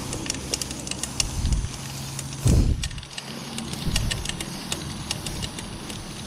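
A steady low engine hum, like a motor vehicle running, fading out about four or five seconds in, with scattered light clicks and rattles throughout. A brief loud low thump comes about two and a half seconds in.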